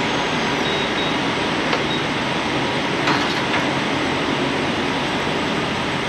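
Steady running noise at a truck-stop diesel fuel island, with two light knocks about a second and a half and three seconds in as the fuel nozzle and hose are handled.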